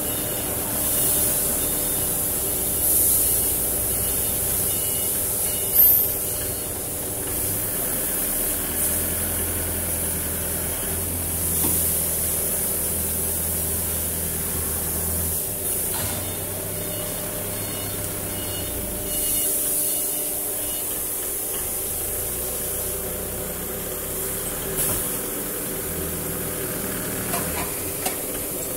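Workshop machinery humming steadily, with repeated short bursts of compressed-air hiss and a faint repeating electronic beep.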